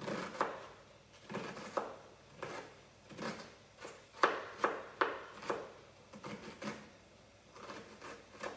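Kitchen knife chopping onion on a cutting board: a run of uneven chops, about two a second, each a short knock of the blade on the board.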